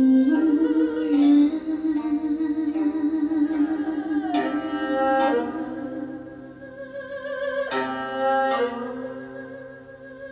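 Instrumental interlude of a Chinese song: a bowed string melody on held, wavering notes, with plucked string notes struck about four and a half and seven and a half seconds in.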